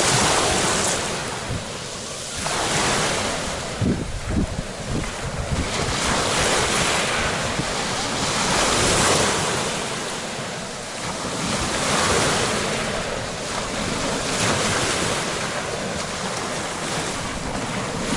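Small Black Sea waves breaking on a pebble beach, the surf washing up over the stones in swells that rise and fall every few seconds. Wind buffets the microphone briefly about four seconds in.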